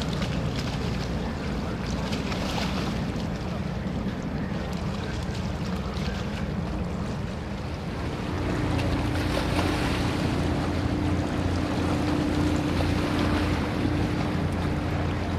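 Boat engine rumble and water noise on the harbour, with wind buffeting the microphone; about halfway through, a steady engine hum sets in and gets a little louder as a vessel comes closer.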